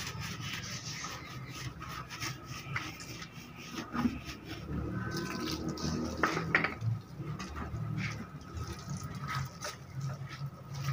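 Hands scrubbing a motorcycle's seat cover and bodywork with soap and water: irregular wet rubbing and dripping, with a few sharp knocks about four and six seconds in.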